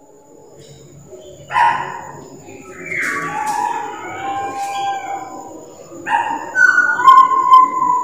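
Butcherbird singing: clear, fluted whistled notes, some gliding in pitch, starting about a second and a half in after a quiet start.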